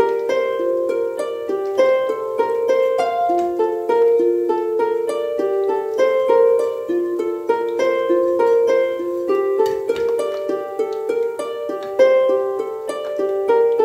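Background music: a melody of quick plucked-string notes.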